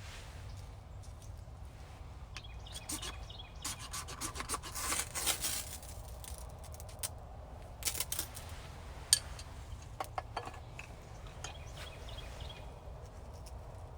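Rustling and scraping of things being handled, heaviest from about two and a half to six seconds in, with scattered sharp clicks and one loud click about nine seconds in.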